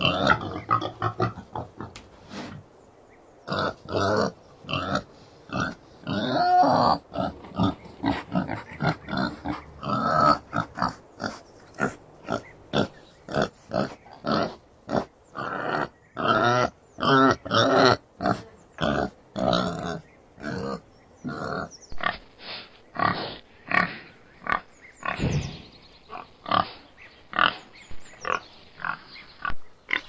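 Boar grunting in a long run of short grunts, about two a second, with a pause of about a second near the start. The grunts are processed as 8D audio, panned around the listener's head.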